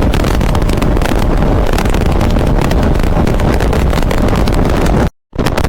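Wind buffeting the microphone on a moving motorcycle, over the engine and road noise. The sound cuts out abruptly for a moment about five seconds in.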